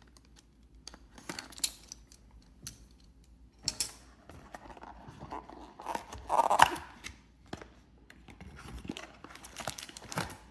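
Plastic shrink-wrap being torn and crinkled off a trading card booster box, with scattered rustles and small clicks. The loudest tearing comes about six and a half seconds in.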